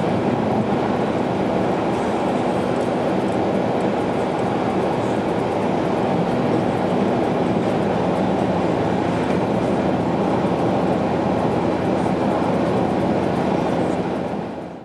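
Steady road noise of a car cruising on an expressway, heard from inside the cabin: tyre rumble and a low engine and drivetrain hum. It fades out at the very end.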